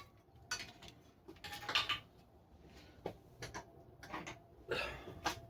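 Irregular clinks, clicks and short scrapes of parts and tools being handled, with the loudest cluster about two seconds in.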